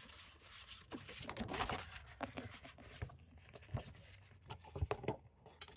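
Paper and card rustling, with scattered light taps and clicks as items are lifted out of a subscription box and handled.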